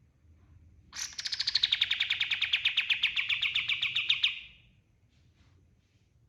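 A kapas tembak songbird singing one long, fast trill of rapidly repeated notes, about ten a second, that starts about a second in, begins slightly higher and then settles, and stops about three seconds later.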